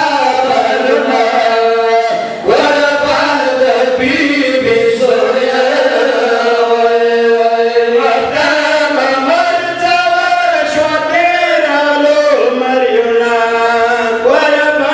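A group of men chanting a Pashto noha, a Shia mourning lament, together into microphones, in long drawn-out, wavering phrases with short breaks for breath.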